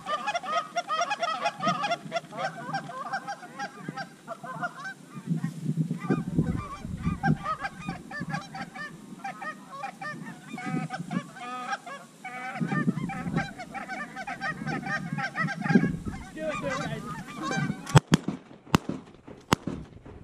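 A flock of geese honking continuously as they come in over the decoys, many calls overlapping. Several sharp cracks near the end, shotgun shots at the incoming birds.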